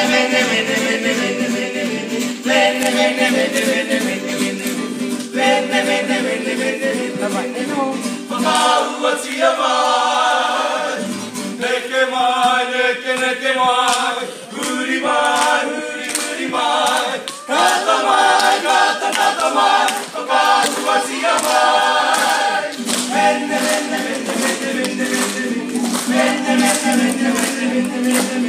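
A group of voices singing a song together in phrases, accompanied by a strummed acoustic guitar.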